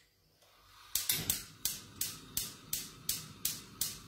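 A gas hob burner being lit: a spark igniter clicks steadily about three times a second over a soft hiss of gas.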